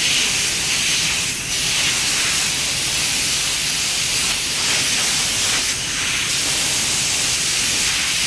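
Compressed-air paint spray gun hissing steadily as it sprays, with slight changes in the hiss about a second and a half in and again near six seconds.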